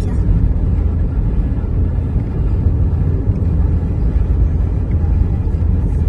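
Steady low rumble of a moving car heard from inside its cabin: road and engine noise while driving.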